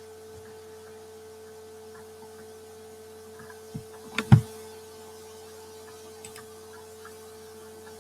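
Steady electrical hum with a faint background haze, broken about four seconds in by three short knocks close together, the last the loudest.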